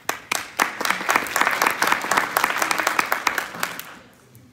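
Audience applauding: many hands clapping, swelling quickly and dying away after about four seconds.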